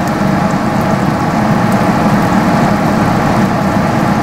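A pot of tomato meat sauce simmering while it is stirred with a wooden spoon, over a steady low hum.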